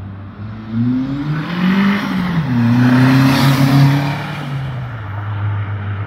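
Turbocharged Mitsubishi Eclipse accelerating hard along the street. The engine pitch climbs, steps down about two seconds in, and the car is loudest as it goes past about three seconds in, then fades away.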